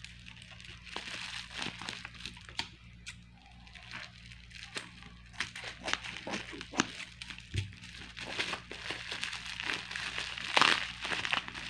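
Plastic bubble wrap crinkling and crackling in irregular sharp clicks as it is cut with kitchen scissors and pulled open by hand. The crinkling grows loudest near the end as the wrap is torn apart.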